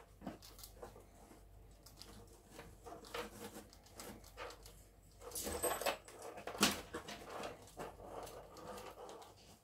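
Pet rats scrabbling and rustling through wood-shaving bedding: a run of light, irregular rustles and clicks, busiest a little past halfway.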